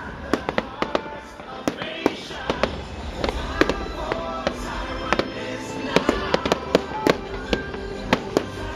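Fireworks bursting in quick succession, many sharp bangs and crackles a second over a low rumble, with music playing underneath.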